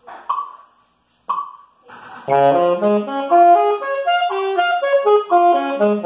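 Metronome ticking at one click a second, then from about two seconds in a saxophone plays quick major arpeggios, about four notes a second, running up and down.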